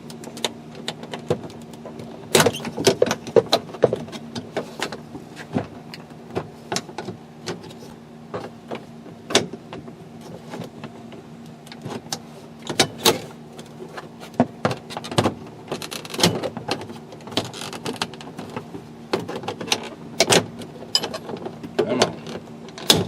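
Irregular plastic clicks and knocks as the trim ring around a pickup's interior door handle is pried and unsnapped off the door panel, over a steady low hum.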